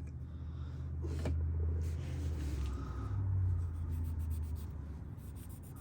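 Scratchy rubbing and scraping on an old pocketknife as caked-on grime is worked off it, over a low handling rumble; a sharp click about a second in and a run of fine rapid clicks near the end.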